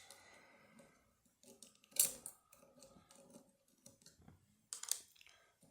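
Small metal clicks and clinks of a Banham five-lever mortice lock's levers and spacers being handled as the lock is taken apart. There is a sharper click about two seconds in and another near the end.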